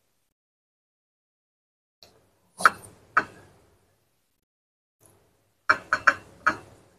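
Close-miked crunching of crispy krupuk crackers being chewed: two loud crunches about two and a half seconds in, then a quick run of four more near the end, with near silence between bites.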